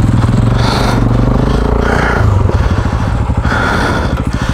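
KTM 640 Adventure's single-cylinder engine running at low, steady revs, its note dipping briefly about two seconds in.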